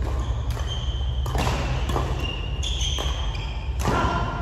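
Several irregular thumps, with short high squeaks between them, over a steady low hum.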